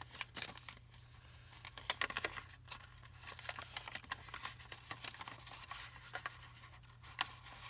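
Paper being handled: faint rustling, crinkling and small taps as sheets are moved and arranged, over a steady low hum.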